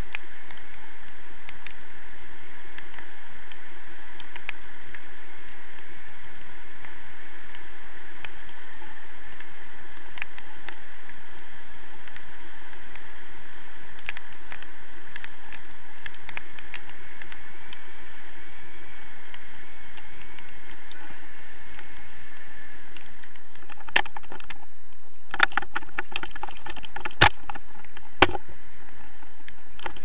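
Steady wind rushing over an action camera's microphone during a tandem paraglider flight, with a few sharp clicks and knocks in the last few seconds.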